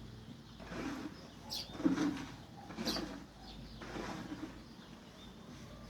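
Sparrows chirping at a nest site: two short, sharp chirps, over a lower call repeated about once a second.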